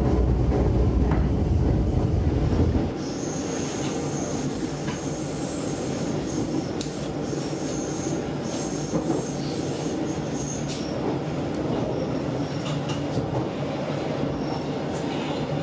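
S-Bahn electric train running on the rails, heard from inside the car. About three seconds in, a heavy low rumble gives way abruptly to a quieter run with thin, high wheel squeals and a few sharp clicks.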